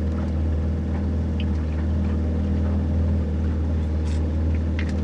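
Steady low drone of a boat's inboard engine heard from inside the cabin, with a few faint clicks near the end.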